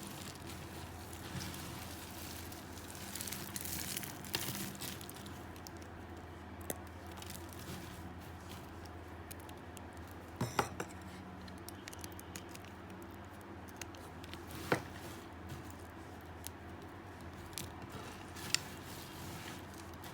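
Dry soap being cut into little pieces, crisp crunching and crackling with a few sharp snapping clicks.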